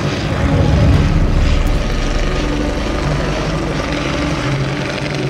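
Propeller piston engines of vintage early-aviation aircraft flying overhead. The sound is a steady rumble that is loudest about a second in.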